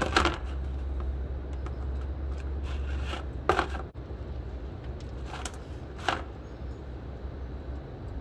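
A plastic oil-drain basin being set down and knocked into place on a tiled floor, then a hand tool clicking against a motorcycle's sump drain plug as it is put on to loosen it. A few short sharp knocks stand out, the loudest at the very start and about three and a half seconds in, over a low steady hum.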